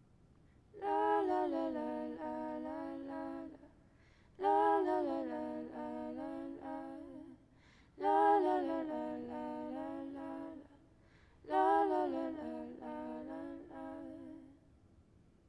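A woman's voice singing four wordless phrases unaccompanied, each about three seconds long, with short pauses between them.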